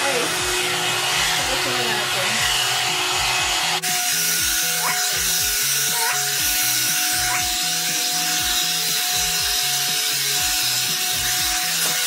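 Background music with a steady beat and a singing voice, laid over the steady hiss and whine of a one-step hot-air dryer brush running on hair. The sound changes abruptly about four seconds in.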